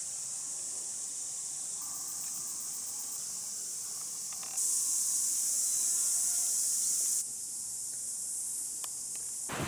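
Steady high-pitched outdoor hiss, as of an insect chorus in the bush. It gets louder for about two and a half seconds in the middle, then drops back.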